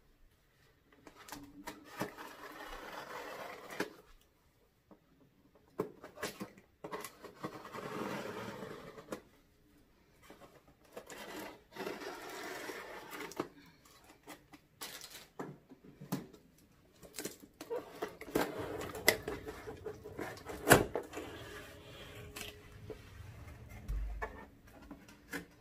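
Plastic shrink wrap being cut with scissors and pulled off a cardboard box: separate bursts of crinkling plastic with sharp snips and clicks, then the cardboard lid being opened.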